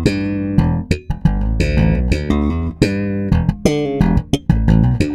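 Electric bass guitar played fingerstyle through a Darkglass Hyperluminal compressor pedal set to its buzz mode: a busy line of short plucked notes with sharp attacks and a few brief gaps.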